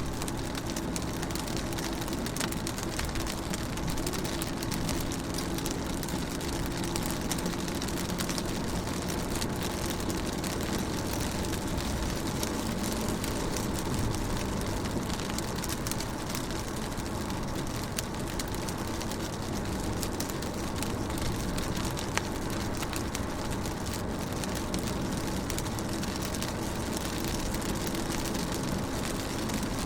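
Rain falling steadily on a window pane, many small drop hits over a continuous wash of rain noise, with a steady low hum underneath.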